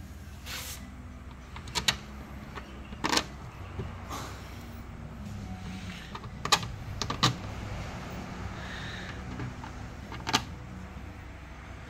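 Scattered light clicks and taps of hands working on an FDF FluidRower's clear plastic water tank and its fittings, irregularly spaced, over a steady low hum.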